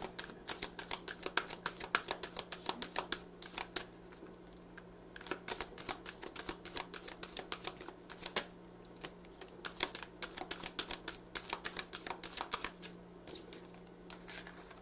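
A deck of tarot cards being shuffled by hand: quick runs of soft card flicks and slaps in four bursts, with brief pauses between them.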